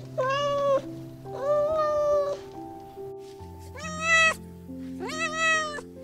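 A domestic cat meowing four times, each meow under a second long and fairly even in pitch, over soft background music with held notes.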